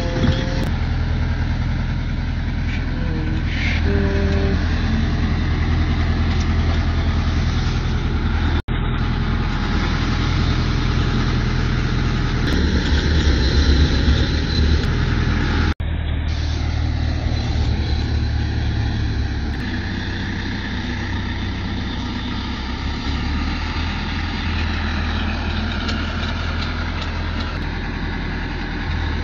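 Farm tractor engine running steadily under load as it works a field: a constant low drone. The sound cuts out briefly twice, about 9 and 16 seconds in.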